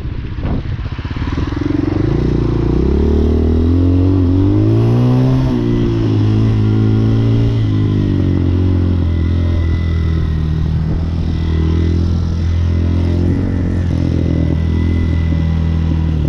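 Engine of a Hawk 250cc motorcycle pulling away and accelerating, rising in pitch for a few seconds. The pitch drops at a gear change about five seconds in, and then the bike cruises at a steady engine speed.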